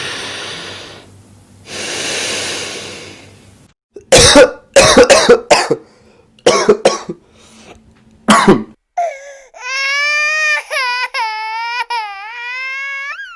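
A sequence of human body sounds: two long, noisy breaths, then a run of sharp coughs, then several seconds of high-pitched, wavering crying.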